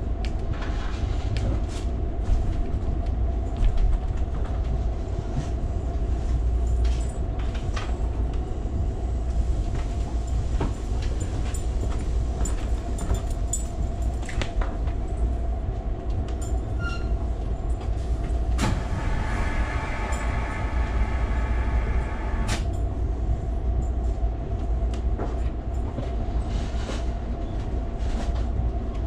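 Passenger train running, heard from inside the car: a steady low rumble of wheels on rail with a constant hum and scattered clicks and knocks. Just past the middle, a higher tone with several overtones sounds for about four seconds and then stops.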